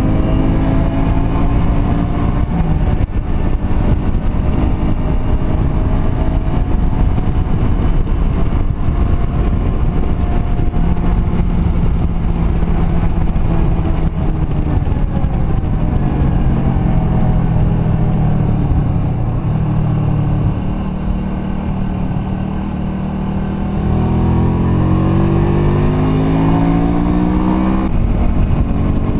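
Honda Shadow 125's small V-twin engine running on the move, heard from the rider's seat. It holds a steady speed, eases off and quietens about two-thirds of the way through, then the pitch rises steadily as it accelerates again near the end.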